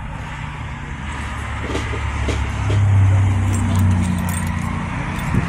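A motor vehicle going by on the road: a low engine rumble that swells to its loudest about three seconds in and then eases off. A few light knocks and rattles sound over it.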